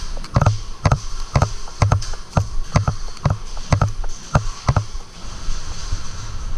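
Footsteps of the person carrying the camera, walking at about two steps a second, with gear rustling at each step. The steps stop about five seconds in.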